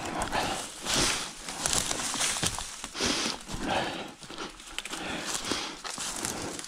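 Dry twigs and cut branches crunching and rustling underfoot as a mountain bike is pushed through a pile of brush, in uneven bursts about once a second.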